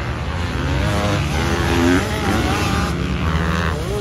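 Several motocross dirt bike engines running on the track, their pitch climbing and falling as riders accelerate out of corners and back off.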